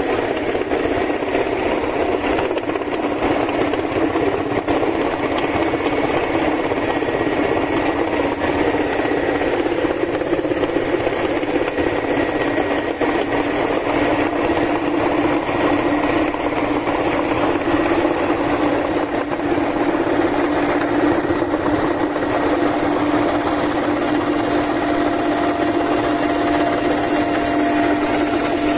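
Helicopter cabin noise heard from inside: a loud, steady drone of turbine engines and rotor, with a rapid, even chop running through it.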